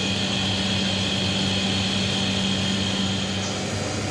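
Steady mechanical drone of a laboratory machine processing soy protein granules: a constant low hum with a faint high whine. Part of the hum drops out near the end.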